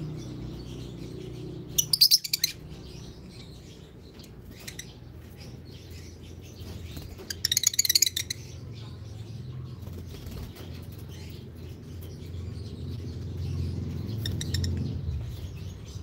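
Lovebirds giving short bursts of rapid, shrill chattering: two loud bursts, about two seconds in and again around the middle, and a fainter one near the end, over a steady low hum.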